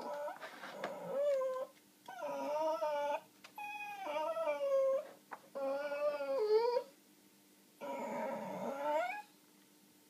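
A small dog in a wire crate whining and whimpering in five drawn-out, wavering cries, each about a second long with short pauses between.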